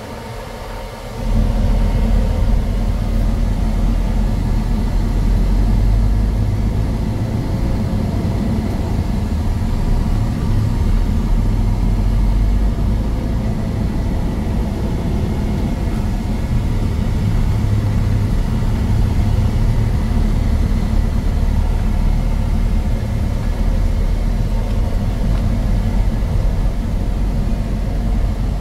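The Paccar 12.9-litre inline-six diesel of a 2015 Peterbilt 389, heard from inside the cab. It jumps sharply louder about a second in as the truck is given throttle and pulls away, then runs steadily with a deep, low rumble as the truck drives slowly.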